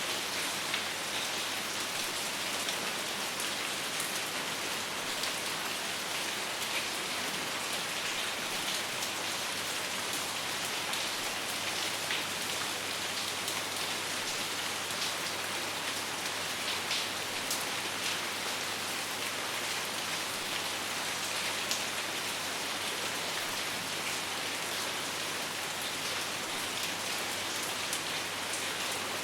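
Steady rain falling: a constant even hiss with scattered sharp ticks of individual drops, and no thunder.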